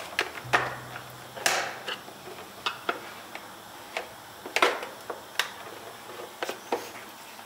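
Scattered plastic clicks, taps and a short scrape from a small flathead screwdriver prying at the little clips that join a Ford F-150/Super Duty tow mirror's head to its arms.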